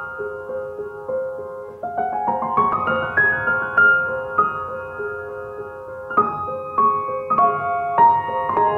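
Background piano music: a gentle repeating pattern of notes, with a run of notes climbing upward about two seconds in.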